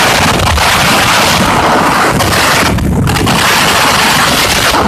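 Loud wind buffeting on the microphone of a camera carried on a moving motorcycle, a dense rushing roar with low rumble that eases briefly about three seconds in.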